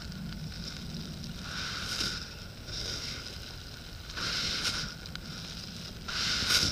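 Scratchy rubbing noise from a camera microphone scrubbing against a shirt collar, coming and going in short bursts about four times, over a steady low rumble.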